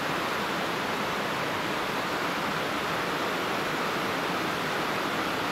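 Steady rush of a fast-flowing mountain creek.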